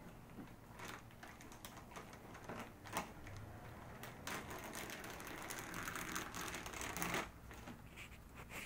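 Plastic mailer bag being torn open along its tear strip: a few short crinkles, then a long rasping rip of about three seconds from about four seconds in.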